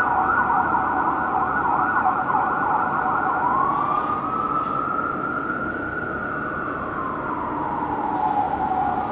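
Emergency vehicle electronic sirens sounding on a code 3 response. A fast yelp runs for the first three seconds or so, then one slow wail rises and falls away.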